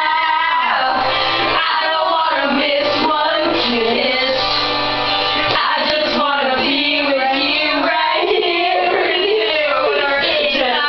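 A recorded song playing, with sung vocals over a full band accompaniment.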